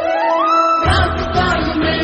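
Indian devotional song with a singing voice over music: a rising pitch glide, then the beat and bass come back in a little under a second in.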